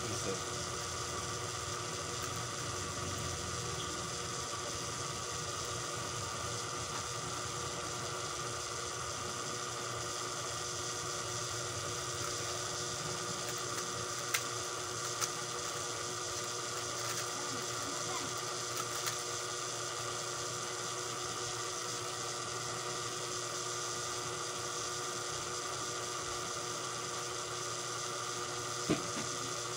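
Steady electrical hum made of several fixed pitches, with a few soft isolated clicks from a 3x3 speedcube being turned.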